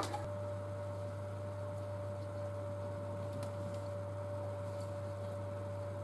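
Steady low electrical mains hum with a faint, constant higher whine over it.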